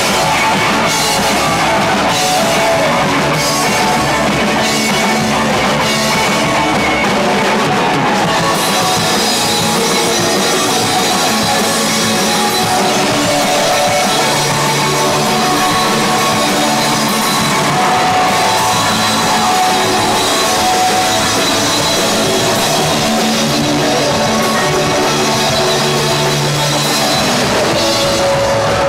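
Rock band playing live, drums and guitars loud and dense, recorded from among the crowd.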